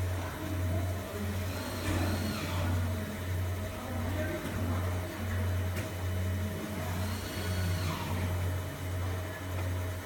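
Enclosed fiber laser marking machine running while it marks text onto a metal card: a loud, steady low hum that dips briefly about once a second, with a faint steady higher tone above it.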